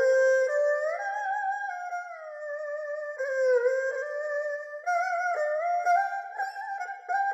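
Solo erhu played unaccompanied: a single bowed melody of held notes joined by slides up and down in pitch, moving into shorter, quicker notes near the end.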